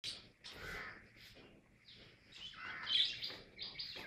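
Small birds chirping repeatedly in high-pitched calls, busiest about three seconds in.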